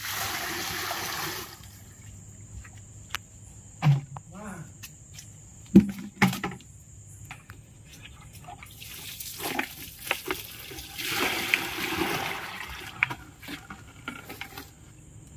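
Water poured and splashing from a plastic bucket onto the ground, in a short gush at the start and a longer one about nine seconds in, with scattered knocks and clatter of handling in between.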